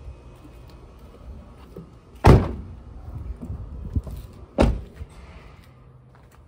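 Car doors being shut: two loud slams about two seconds apart, with a few lighter knocks between them.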